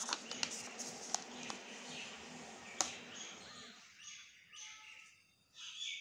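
Paper rustling and crinkling with several sharp clicks as a sheet of pink chart paper is lifted off a notebook page, dying away a little before 4 seconds in. Near the end a few short bird chirps are heard.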